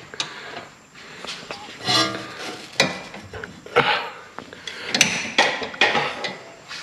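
Scattered knocks, clatters and scrapes as a power steering pressure hose is wiggled and worked out through a wheel well, knocking against the surrounding parts. A short pitched sound comes about two seconds in.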